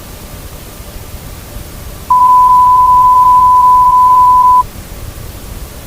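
A single steady electronic beep tone, one unwavering pitch held for about two and a half seconds, starting about two seconds in. Under it runs a steady background hiss.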